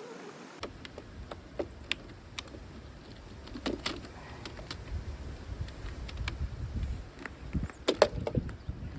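Scattered clicks, taps and knocks of hands and tools working on battery-pack parts, busier and louder near the end, over a low rumble of wind on the microphone.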